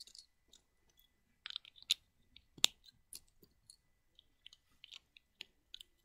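Plastic Lego bricks clicking and clattering as they are handled and pressed together: an irregular scatter of sharp clicks, the loudest about two and a half seconds in.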